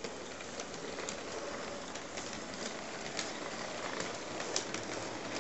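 Large-scale model steam locomotive running along its track: a steady whirring rumble from its motor and wheels, with scattered sharp clicks.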